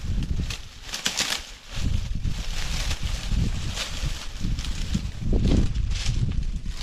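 Dry leaves and twigs rustling and crackling as cut leafy branches are picked up and gathered from a pile, in several swishes, over a steady low rumble of wind on the microphone.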